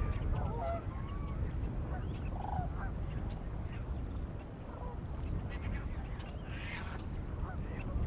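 A flock of geese honking on the water, the calls thickest in the first second or so and then scattered, over a steady low rumble.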